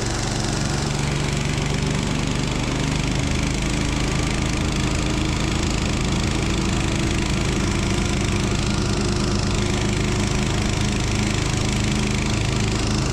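The small petrol engine of a motorized ice tow (a 'motor-dog') running steadily under way as it pulls the angler off across the ice.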